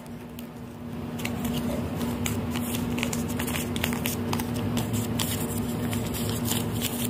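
Light rustling and crinkling of small paper pieces being handled, with many quick little crackles, over a steady low hum.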